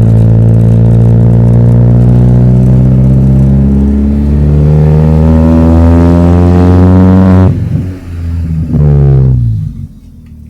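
Chevrolet Astra's four-cylinder engine, exhaust running with no muffler (straight pipe), under load with a loud, steady note. About halfway through it climbs steadily in pitch, then drops suddenly at around seven and a half seconds. A short rise and fall follows before the engine note dies down near the end.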